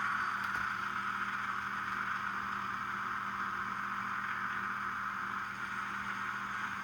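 Sound-decoder diesel engine sound from an ESU LokSound V5 micro loaded with ESU's RDC sound file, played through a tiny 11x17 mm sugar-cube speaker in an N scale Kato RDC2: a steady engine drone that eases slightly quieter.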